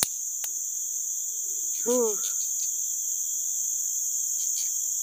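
Steady high-pitched chorus of forest insects droning without a break, with a click at the start and a short hum from a person about two seconds in.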